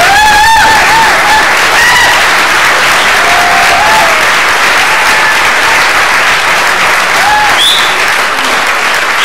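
Audience applauding steadily. A loud whoop comes right at the start, and a few more cheering shouts are scattered through the clapping.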